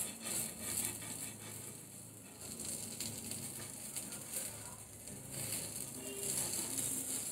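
Pancake batter sizzling softly in a frying pan, with small scrapes and taps of a metal spatula working under the pancake.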